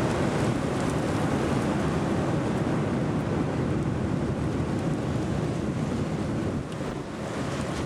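Strong wind buffeting the microphone: a steady rushing noise, heaviest at low pitch, dipping slightly near the end.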